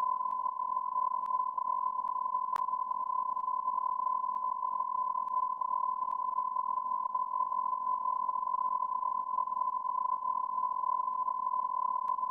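A steady electronic tone near 1 kHz, like a test tone or censor beep, held without a break over a faint hiss, with a few faint clicks.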